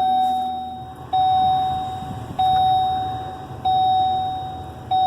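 Dashboard warning chime of a 2010 Volvo XC60 sounding repeatedly, about five evenly spaced chimes, each striking sharply and fading away, over the low rumble of the engine just started.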